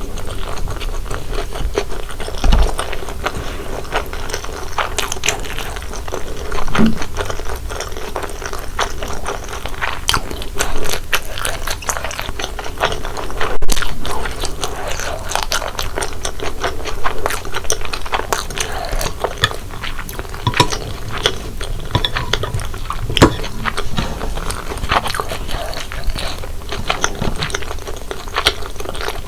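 Close-miked chewing and biting of corn-cheese Buldak spicy stir-fried noodles, with a dense run of small wet clicks and crunches.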